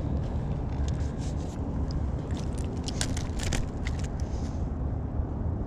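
Steady low rumble of wind buffeting the microphone, with a scatter of small sharp clicks and light rattles between about one and four seconds in.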